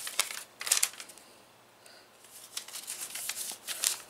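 Paper rustling and crinkling as a small folded instruction leaflet is handled, in a few short bursts with the longest in the second half.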